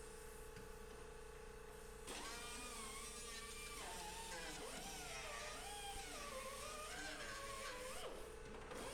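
Faint whine of a power tool motor starting about two seconds in, its pitch rising and falling, over a steady electrical hum.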